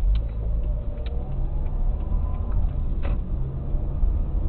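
Car interior noise picked up by a dash cam while driving: steady engine and road rumble with a faint rising engine note, and a few light clicks.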